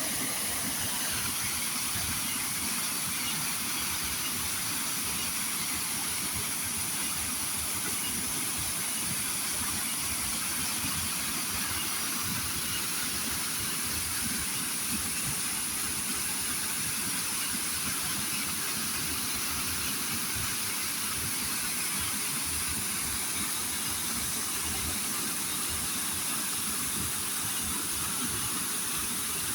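Waterfall: water falling and splashing into a pool, making a steady, unbroken rushing hiss.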